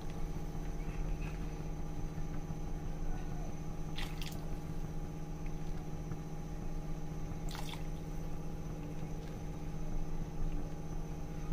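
A ladle stirring simmering chicken soup in a pan as cornflour slurry is poured in a little at a time to thicken it, with soft wet liquid sounds. A steady hum runs underneath, and two short clicks come about four and seven and a half seconds in.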